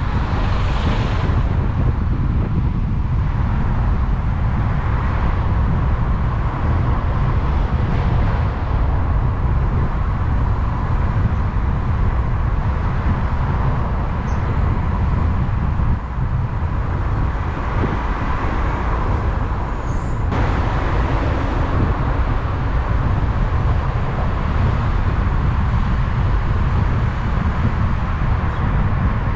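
Steady low rumble of a moving vehicle, with no change in pace.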